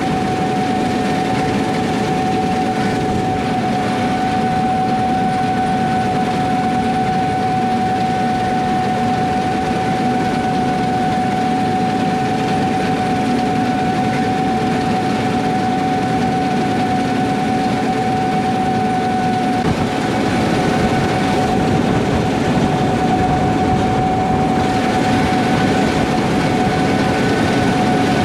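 Gleaner S78 combine harvesting wheat: engine and threshing machinery running steadily with a constant high whine over a dense machine rumble. It grows slightly louder about two-thirds of the way through.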